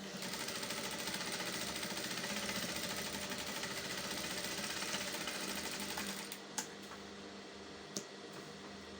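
Electric sewing machine running steadily for about six seconds, then stopping, followed by two sharp clicks about a second and a half apart.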